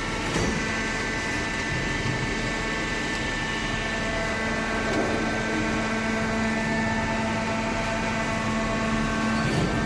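Hydraulic carton baler running, its power pack giving a steady mechanical hum with a few fixed whining tones, briefly disturbed about half a second in and again near the end.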